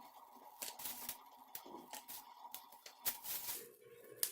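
Green chilli stems being snapped off by hand, with the chillies set down on a paper lining: a series of small sharp snaps and light paper rustles, about seven of them.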